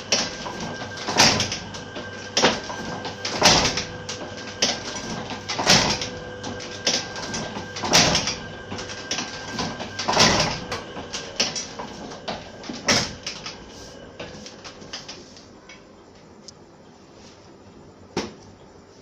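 A 50-year-old platen letterpress machine running, its platen closing on the type with a loud clank about every two seconds, with lighter clicks from the linkage and rollers in between and a steady hum under it. About three-quarters of the way through the strokes and hum die away, and one more single knock comes near the end.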